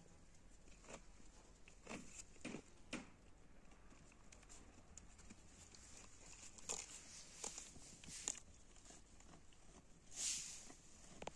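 Goat kids grazing close by: soft, scattered tearing and rustling of grass and leaves as they bite at the plants, with a louder rustle near the end.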